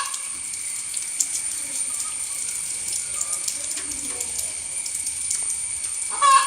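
A steady high hiss with two constant whining tones and faint scattered ticks runs underneath. About six seconds in, a hen gives one loud squawk, part of the cackle hens make after laying an egg.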